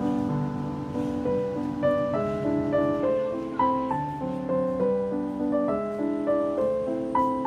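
Background piano music: a melody of single notes stepping over held lower chords.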